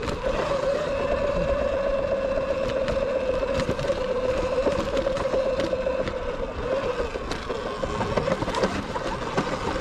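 Sur-Ron electric dirt bike riding on a dirt trail: a steady electric motor whine over tyre and trail noise, with scattered sharp knocks. The knocking is the stock primary drive belt skipping teeth and slipping as it strips.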